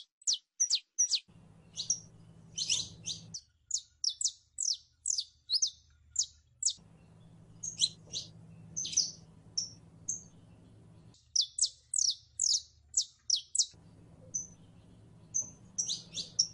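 Saffron finch singing: rapid runs of short, sharp, high chirps, mostly quick downward sweeps, several a second with brief pauses between runs.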